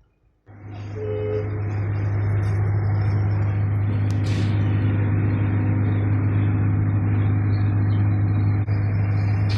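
A machine's motor starts up about half a second in and then runs steadily with a deep, even hum.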